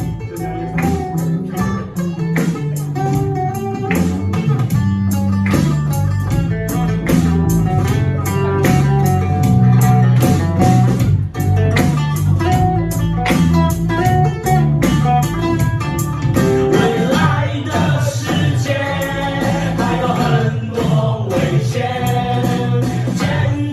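Live band playing an instrumental passage: guitar over a moving bass line and a steady drum beat. In the second half, higher lines bend up and down in pitch over the band.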